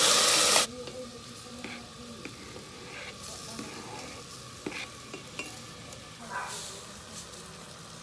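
Loud sizzle of meat frying in hot oil in a stainless steel pot, cutting off abruptly within the first second. Then quieter stirring with scattered clicks of a spatula and cutting board knocking against the pot as chopped tomatoes go in.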